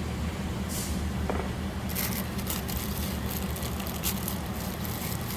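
A steady low hum from a motor running in the background, with rustling and light clicks of small parts being handled from about two seconds in.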